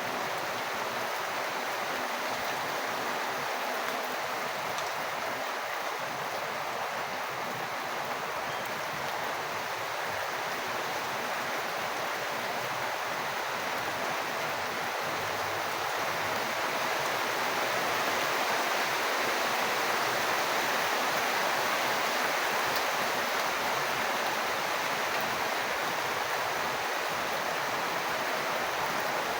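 Falling rainwater making a steady, even rush of water, slightly louder a little past halfway through.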